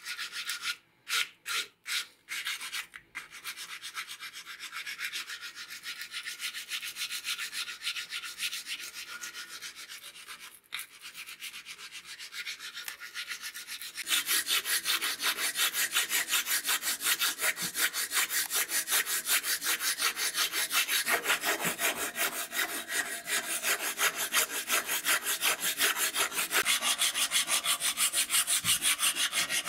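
Wooden straight-razor handle scale being shaped by hand with a file and abrasive, in rapid back-and-forth rasping strokes. A few separate strokes at first, then a steady run that becomes louder and denser about halfway through.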